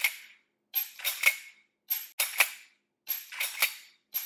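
Uberti 1873 lever-action rifle being levered and dry-fired over and over with a laser training cartridge chambered: sharp metallic clacks of the lever and the falling hammer. The clacks come in quick clusters a little more than a second apart, four times.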